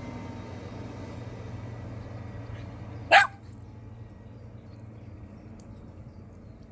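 The engine of a Maxum 2352MH motorboat drones low and steady, slowly fading as the boat moves away across the water. About three seconds in, a single short, loud bark cuts across it.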